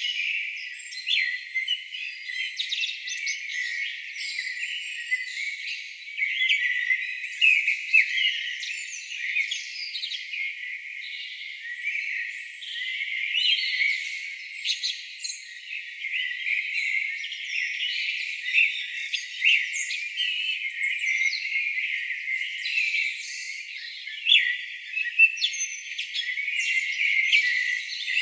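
Several birds singing and calling at once, a busy mix of short chirps and quick trilling phrases with no low sound at all beneath them.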